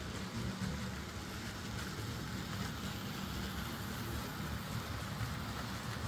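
OO gauge model trains running through a station on the layout, a van train and a coach train passing: a steady rolling rumble of wheels on track.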